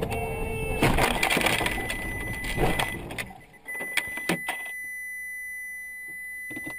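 Collision heard from inside a dashcam car on a snowy road: about two seconds of loud, noisy impact with knocks. Then, about three and a half seconds in, a steady high electronic beep starts and holds, with a few sharp clicks just after it begins.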